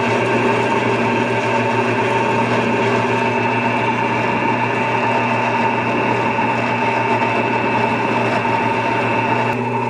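Horizontal metal-cutting bandsaw running and cutting slowly through a metal block held in its vise: a steady motor hum and blade whine with the scrape of the teeth in the cut. The blade is a fine 24-tooth one, which the owner finds too fine, making the cut very slow.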